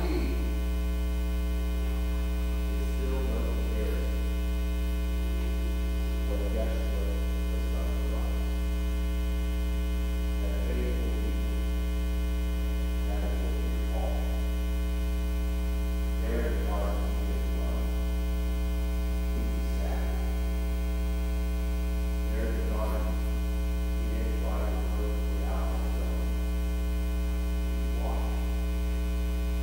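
Loud steady electrical mains hum with a ladder of overtones, with faint snatches of a man's voice every couple of seconds beneath it.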